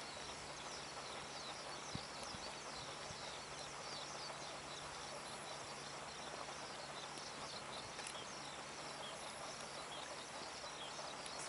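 Many small birds chirping over a steady outdoor hiss, with one faint knock about two seconds in.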